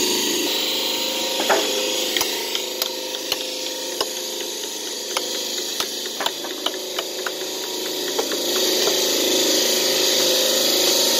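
Hammer striking a chisel against the edge of a Shahabad limestone slab to split and dress it: a series of sharp taps on stone, thickest about halfway through. Underneath is a steady noisy hiss of machine running.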